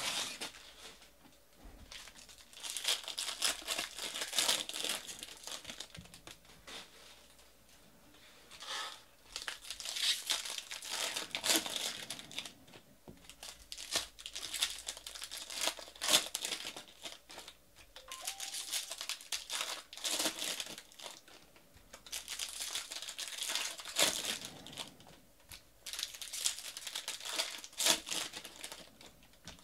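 Foil wrappers of Bowman baseball card packs crinkling and tearing as the packs are ripped open by hand, in repeated bursts with short pauses between.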